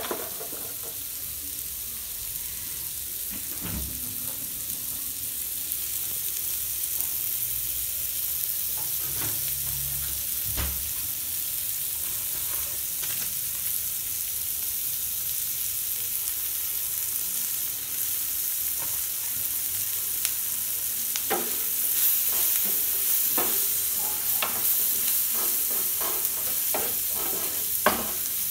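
Kulcha frying in plenty of butter in a flat nonstick pan, with a steady sizzle that grows a little louder in the last third. From about two-thirds of the way through, a wooden spatula clicks and scrapes against the pan as the onion, tomato and spice topping is stirred.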